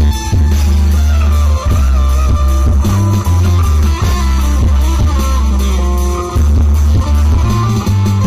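Live band playing loud amplified music: electric guitar and bass guitar over keyboard and a dholak hand drum.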